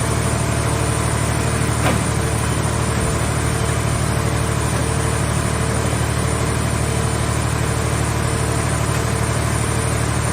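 Portable scrap-car baler's power unit running steadily, a low machine drone with a faint pulsing tone over it. One sharp knock about two seconds in.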